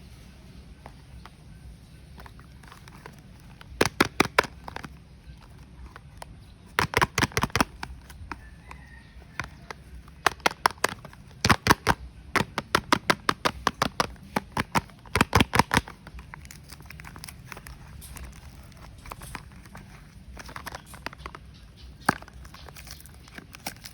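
Soap-bar packaging being torn open and crinkled by hand: short runs of sharp crackling clicks about four seconds in, near seven seconds, through most of the middle, and once more near the end, with quiet pauses between.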